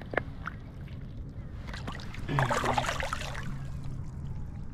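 Shallow river water splashing and sloshing as a smallmouth bass, held by the lip, is released and swims off, loudest a little over two seconds in.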